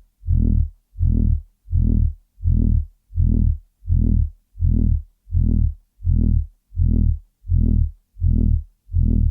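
Loud, deep electronic throbbing noise: a low pitched hum that pulses on and off at an even pace, about three pulses every two seconds.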